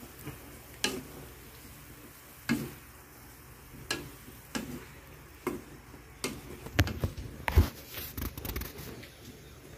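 A spatula stirring and tossing a stir-fry of beef, broccoli and cauliflower in a wok, giving irregular sharp knocks and scrapes against the pan, more of them close together near the end, over a faint sizzle.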